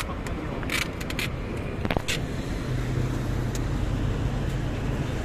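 A large cardboard box scraping and bumping in short bursts as it is shoved into an SUV's cargo area, mostly in the first two seconds, over a steady low rumble of street traffic with an engine humming.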